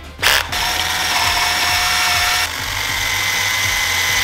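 Warrior 18V cordless drill drilling out the inside of a dirt bike's metal handlebar end, widening it to take bar-end inserts. A short burst, then the drill runs steadily with a whine that steps up in pitch about halfway through.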